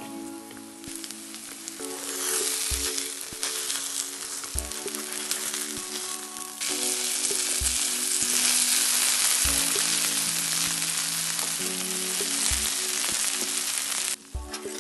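A grated-carrot and egg omelette with mozzarella sizzling in oil in a nonstick frying pan. The sizzle grows louder about two seconds in and again past the middle, then cuts off abruptly near the end.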